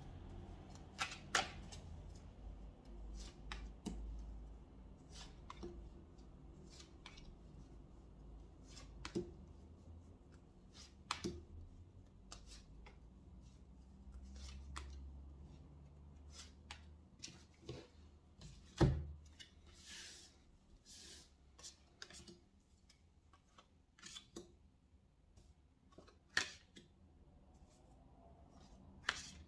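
Katina cards being shuffled in the hands and laid down on a tabletop: irregular soft flicks, snaps and taps, the loudest a sharp tap about 19 seconds in.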